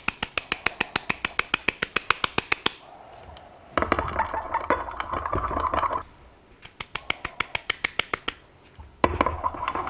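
Black glitter being shaken from a bottle into liquid soft plastic in a glass measuring cup, giving quick even clicks at about ten a second, in two runs. Between the runs, and again near the end, there are stretches of scraping, which fit a metal spoon stirring the mix in the glass cup.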